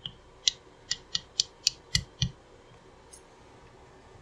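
A soft-faced mallet tapping a roll pin into a 200-4R transmission valve body. There are about eight light, quick taps over two seconds, and the last two land as duller thumps. This is the retaining roll pin that holds the valve train's end cap being driven into its bore.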